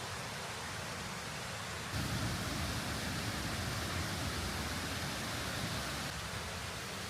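Steady rushing of water from the burn and waterfall ahead, an even hiss. From about two seconds in to about six seconds a deeper rumble swells under it.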